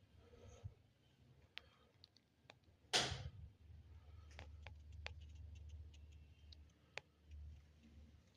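Faint scattered clicks and taps, with one brief louder noisy burst about three seconds in.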